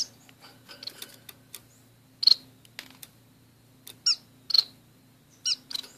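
Small caged estrildid finches (orange-cheeked waxbills and a society finch) calling: about five short, high chirps spread across the few seconds, the loudest a little past two seconds and at about four and a half seconds. Light clicks and taps sound between them.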